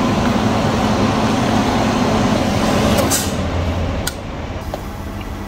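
7-Eleven Slurpee machine dispensing green slush into a cup: a steady hiss over a low machine hum, easing off about three seconds in.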